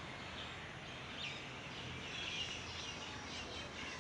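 Forest ambience: a steady background hiss with short, high bird chirps scattered through it, one about a second in and several more in the second half.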